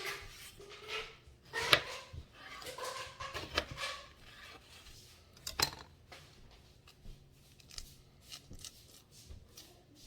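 Knife cutting fruit on a cutting board: scattered clicks and taps, with two sharper knocks a little under two seconds in and just before the six-second mark.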